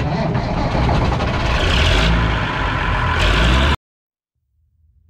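The engine of a Someca combine harvester running loudly at work, heard close to its exhaust. It cuts off abruptly a little under four seconds in. Faint music fades in near the end.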